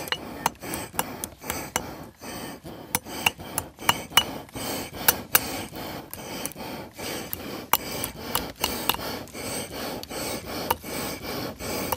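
Hammer blows on a red-hot metal poker laid across the poll of an axe used as an improvised anvil, bending a hook into the poker's end: a string of sharp metallic strikes, a few a second with short pauses. A steady rubbing sound runs behind the strikes, from the hand air pump blowing the charcoal fire.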